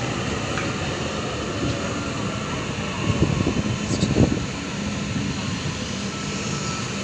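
Wind buffeting the microphone, gusting harder about three to four seconds in, over the steady hum and rumble of double-deck electric trains at the platform.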